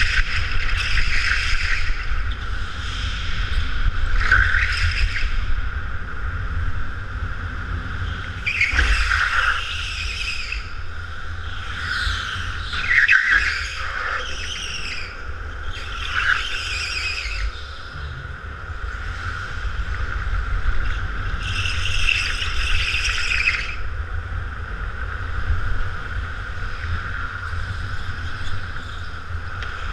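Go-kart heard from onboard: a steady high whine and a low rumble run throughout, broken by bursts of tyre squeal in the corners about six times.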